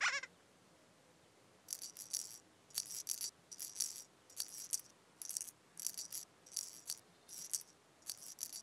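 A short falling chime, then a maraca-like shaker rattling in brief shakes about once or twice a second, a light musical sound effect in a children's TV soundtrack.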